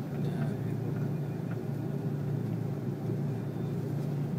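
Steady low rumble of an Airbus A330-300's engines and airflow heard inside the passenger cabin.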